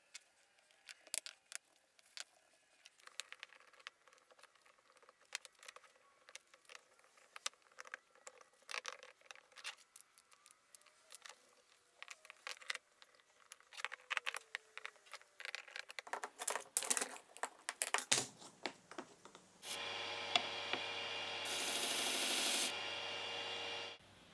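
Small wooden frame pieces tap and click as they are handled and fitted together, and a sanding block rubs on the wood. About twenty seconds in, a steady machine hum starts, gets louder and brighter for about a second, and stops suddenly near the end.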